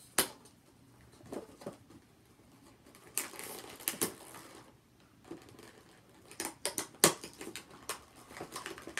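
Clear plastic toy packaging being handled and pried open: crinkling and sharp plastic clicks, with a loud click just after the start and bursts of crinkling about three seconds in and again from about six and a half seconds.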